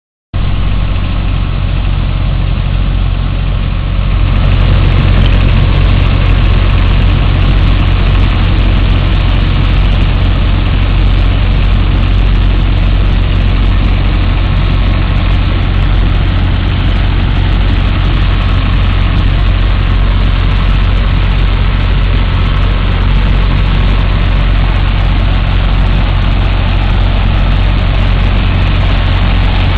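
Sand-pumping dredger at work: the engine driving the sand pump runs with a steady low drone under a continuous rush of sand-and-water slurry pouring from the discharge pipe.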